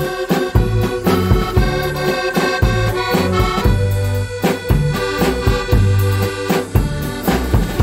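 Piano accordion playing a melody with sustained chords and alternating bass notes, backed by a drum kit keeping a steady beat with cymbal strokes.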